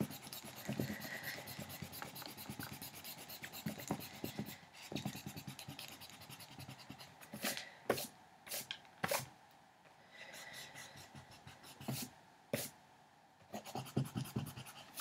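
Eraser rubbing back and forth over drawing paper, removing pencil lines. Faint scratchy rubbing at first, then a run of sharper separate strokes in the second half.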